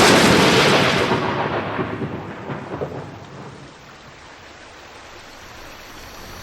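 A loud thunderclap that rumbles away over about three seconds, leaving a steady hiss of rain.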